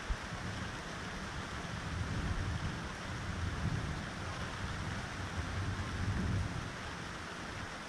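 Thunderstorm: steady rain hiss under a low rumble that swells from about two seconds in and eases off after about six seconds.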